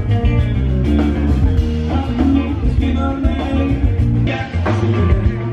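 A live rock band playing through a PA: electric guitar, bass guitar and drum kit, with a heavy bass.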